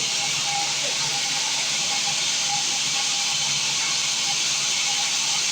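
Sawmill machinery running with a steady, even hiss and a faint low hum underneath.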